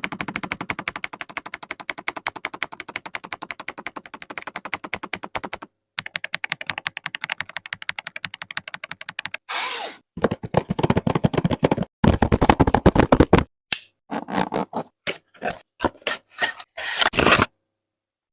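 Fast typing on an Ajazz AK870 TKL mechanical keyboard with Maillard linear switches, a quick continuous run of key clicks with a soft, creamy tone. About ten seconds in there is a brief hiss, then louder, irregular clatter and scraping in uneven bursts that cuts off abruptly near the end.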